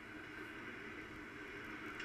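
Steady faint hiss with no distinct events.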